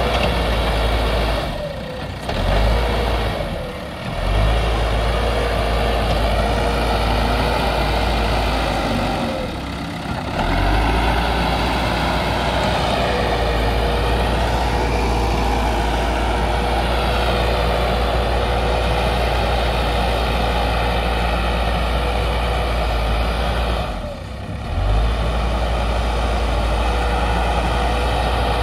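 Escorts backhoe loader's diesel engine running steadily as the machine works through mud with its front loader bucket, with a steady thin whine over the engine note. The sound drops briefly a few times.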